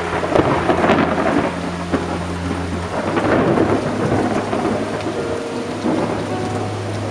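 Thunder crackles and rumbles over steady rainfall, breaking in suddenly at the start. It swells twice, in the first second or so and again around three seconds in, then dies back toward the rain.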